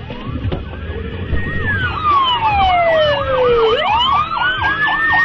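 Emergency vehicle siren sounding two patterns at once: a fast warble of about four sweeps a second, and a slow wail that falls over a couple of seconds and then climbs again.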